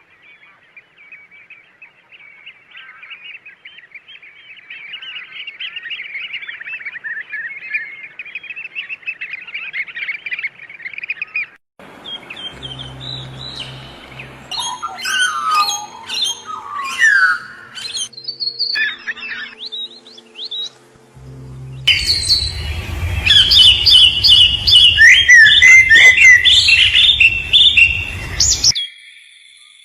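Small birds chirping and twittering in rapid high runs, with sudden changes about twelve and twenty-two seconds in. The last stretch holds loud, dense chirps and squawks over a low steady rumble.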